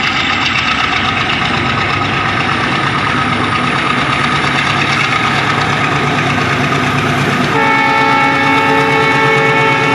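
WDM-3D diesel locomotive with a 16-cylinder ALCO engine chugging as it hauls an express train. About seven and a half seconds in, its multi-tone horn starts and holds steadily.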